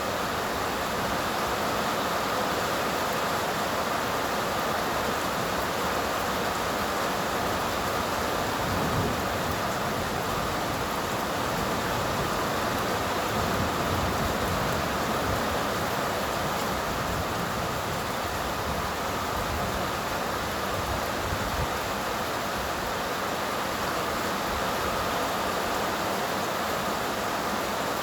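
Steady rain falling during a summer storm, a continuous even hiss of rain.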